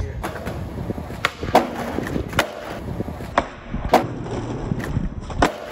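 Skateboard wheels rolling on concrete with several sharp clacks of the board, then the trucks grinding along the top of a wooden bench in a kickflip crooked grind. A loud clack near the end comes as the board comes down off the bench.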